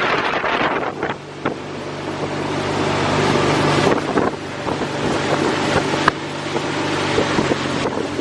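A motor running with a steady low hum under loud wind rushing over the microphone; the hum sets in about a second in and stops shortly before the end.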